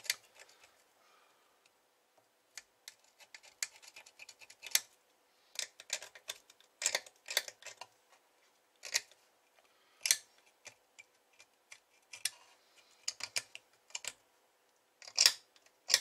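A small hand tool picking and scraping at an amplifier's circuit board and parts, making irregular sharp clicks and short scratches in scattered bunches.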